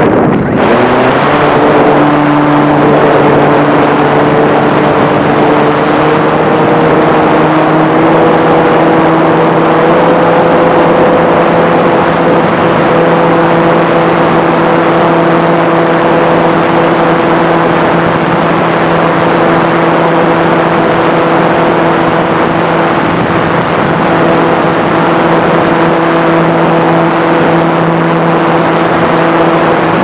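Onboard sound of a radio-controlled model aeroplane in flight: a heavy rush of air over the microphone, with the motor and propeller throttling up about a second in to a steady drone that rises slightly in pitch a few seconds later.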